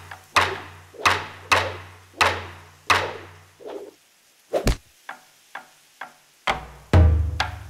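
Rhythmic woody percussion: six hollow knocks about every two-thirds of a second, each with a low tone under it. After a short pause come one sharp hit, a few light taps, and then loud, deep drum hits near the end.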